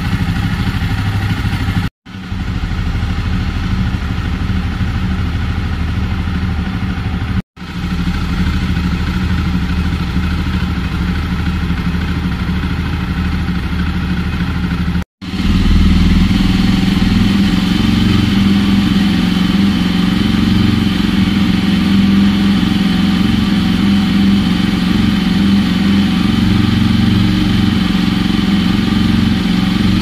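Jawa motorcycle's single-cylinder engine idling steadily, the exhaust note even with no revving. It drops out for an instant three times, at cuts about 2, 7.5 and 15 seconds in, and after the last cut the exhaust is heard closer: louder and deeper.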